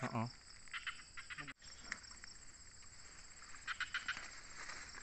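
Insects droning in a steady high-pitched chorus, with short bursts of crackling rustle from leaves and vines being pushed aside, about a second in and again near the end. The sound cuts out for an instant about a second and a half in.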